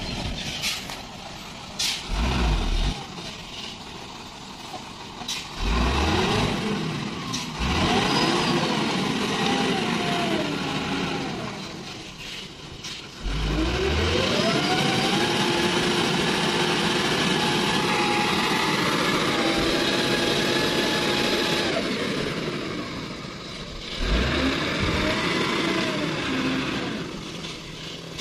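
Diesel engine of a heavily loaded Mitsubishi Fuso dump truck revving hard under load while climbing a slippery mud slope. The engine speed rises in short surges, then climbs about halfway through and is held high for about eight seconds before dropping back.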